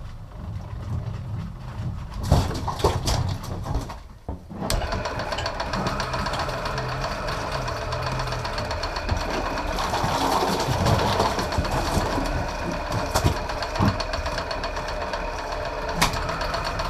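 Electric commercial fishing reel's motor switching on about five seconds in and running steadily, winding in a hooked fish, over a low boat-engine rumble.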